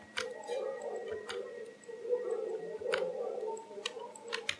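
Computer mouse clicks and keyboard key presses: a few sharp, scattered clicks, with two in quick succession near the end.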